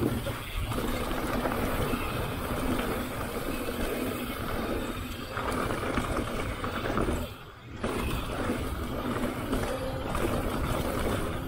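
Mountain bike riding fast down a dirt and gravel trail: a continuous rush of tyre noise on loose gravel, bike rattle and wind on the camera microphone, with a short lull about seven seconds in.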